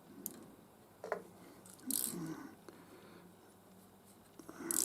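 Faint hand-handling sounds of small metal parts, an earth wire loop and bracket fittings: a few scattered small clicks and scrapes, the loudest near the end.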